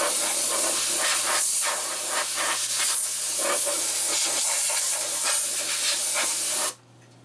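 Can of compressed air blowing a steady hiss into an empty wooden cuckoo clock case to dust it out. The spray stops abruptly near the end.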